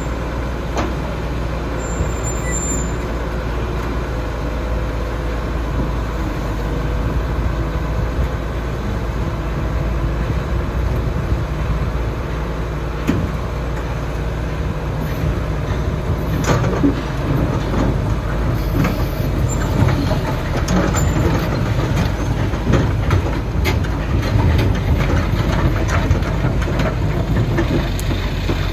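Kato Hy-Dig excavator's diesel engine running with a steady low rumble, joined from about halfway through by scattered clanks and knocks as the machine tracks off a low-loader trailer.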